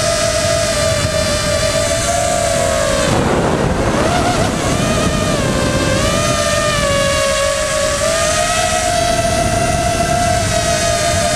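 Electric motors and propellers of an FPV drone, heard through its onboard camera: a steady high whine whose pitch rises and falls with the throttle. About three seconds in the whine dips and blurs under a rush of wind noise for a second or so, then steadies again.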